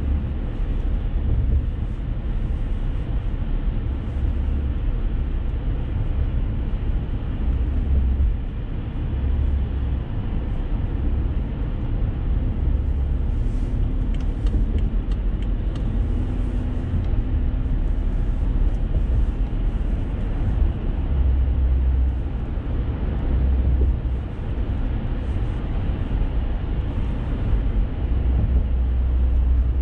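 A car's steady road noise heard from inside the cabin: a low rumble of tyres and engine at cruising speed, with faint hiss on top.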